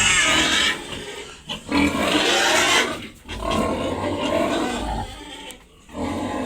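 Pigs squealing: several loud, wavering squeals, one after another, with short breaks between them.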